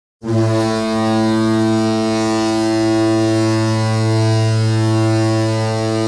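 NHL arena goal horn sounding one long, steady, deep blast rich in overtones. It starts abruptly just after the opening and holds without a break.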